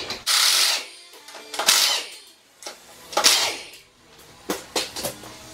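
Three loud, harsh bursts of shop-tool noise from work on the jacked-up pickup's rear wheel, with a few short clicks near the end, over faint background music.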